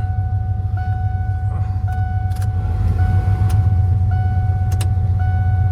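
Straight-piped exhaust with long-tube headers on an OBS Ford F-150 droning low and steady while driving, heard from inside the cab. A thin steady whine runs over it, and a few sharp clicks come about halfway through and near the end.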